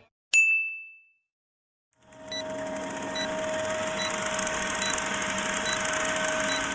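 A single bell ding, a click that rings out and fades within a second. After a second of silence comes an old film-projector countdown sound effect: steady hiss and crackle with a constant hum tone and faint ticks a little under a second apart, cutting off near the end.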